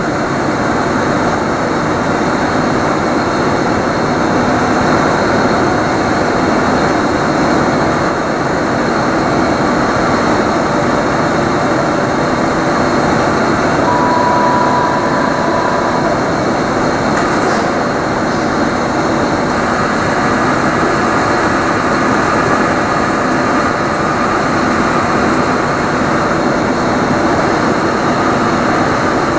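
Dainichi 55" x 240" heavy-duty lathe running, a steady dense mechanical drone. A short high whine comes in about halfway through.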